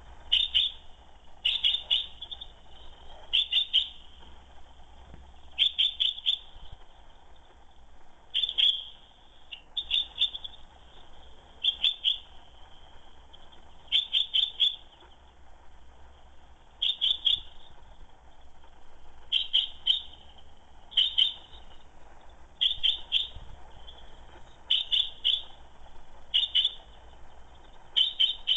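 Female common chaffinch calling: short, sharp notes in clusters of two to four, a cluster about every two seconds.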